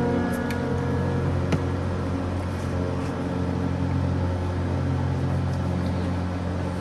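Ambient background music thinned to a steady low drone, with a few faint clicks in the first second and a half.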